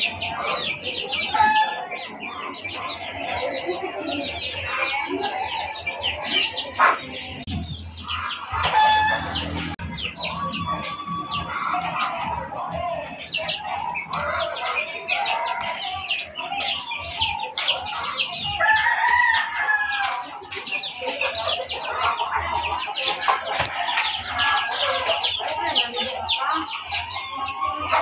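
Chickens clucking and a rooster crowing, over a constant stream of rapid high-pitched chirping.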